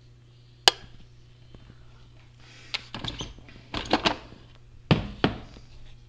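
Handling noise from the coffee maker and its thermal carafe: a sharp click about a second in, then a series of clattering knocks and rattles, over a steady low hum.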